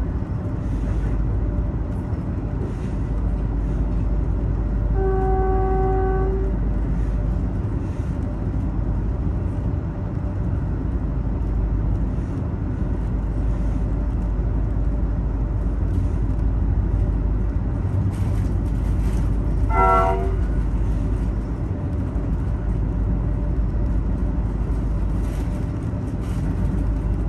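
Train horn sounding, a held blast of a bit over a second about five seconds in and a shorter blast around twenty seconds in, over a steady low rumble.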